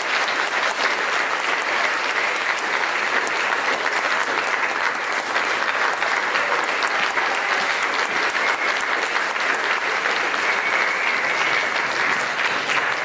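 Audience applauding: a steady, dense clapping of many hands, with the choir on stage clapping too.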